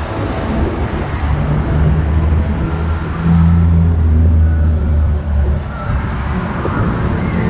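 A motor vehicle's engine drones low as it passes, loudest around the middle and dropping away after about five and a half seconds, over steady traffic noise.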